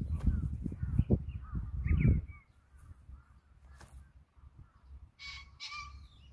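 A crow caws twice in quick succession near the end, with small birds chirping faintly. A loud low rumble fills the first two seconds or so.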